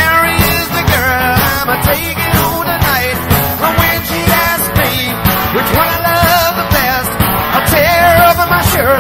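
Rock band playing live in an instrumental passage: a lead line bends and wavers in pitch over steady drums and bass.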